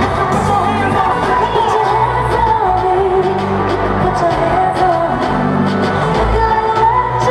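Pop song performed live: a woman singing a melody into a microphone over a backing track with a steady beat and bass.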